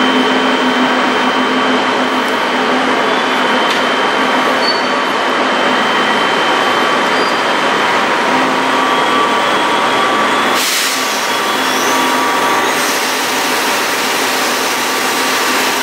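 SNCF BB 17000 electric locomotive standing with its ventilation blowers running: a loud, steady whirring drone with a few fixed tones in it. A hiss of air joins in for about two seconds, a little past two-thirds of the way through.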